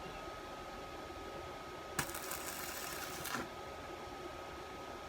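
Stick-welding arc from a Makita MM 300A inverter welder: the arc is struck about two seconds in and crackles for about a second and a half before it breaks off. The current is set too high.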